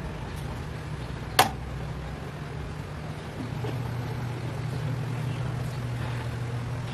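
Whirlpool WFRB752BHW front-load washer running a delicate wash cycle: a steady low hum from the inverter motor as the clothes tumble in the drum, with one sharp click about a second and a half in. The hum grows stronger about three and a half seconds in.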